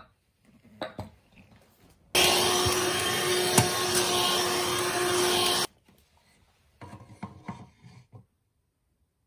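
Cordless handheld vacuum cleaner running for about three and a half seconds, switching on and off abruptly. Near the end, a few light wooden knocks as a small wooden folding stool is set down.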